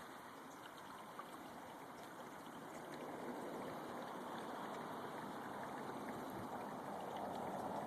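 Creek water running steadily, growing louder about three seconds in.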